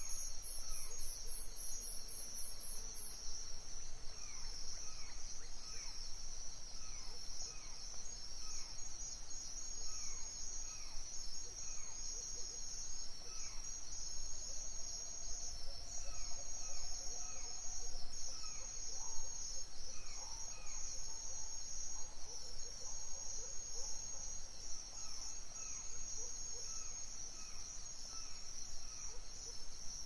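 Crickets trilling steadily and high, with a small bird repeating short falling chirps throughout. A second, higher pulsing trill sounds over them for the first three seconds.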